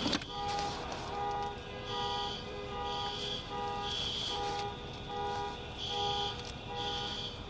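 Several alarms sounding together after a bomb blast, most likely car alarms. They overlap as steady tones with repeating beeps: one about every two-thirds of a second, a higher one about once a second.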